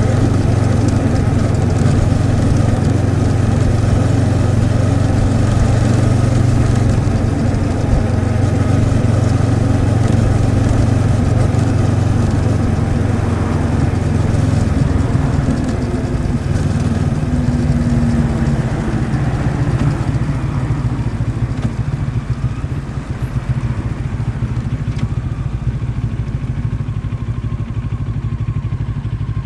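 Moto Morini X-Cape 650's liquid-cooled parallel-twin engine running steadily under way. About halfway through, the engine note weakens and turns unsteady.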